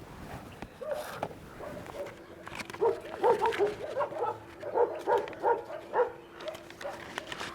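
Dog barking in quick short barks, several a second, starting about two and a half seconds in.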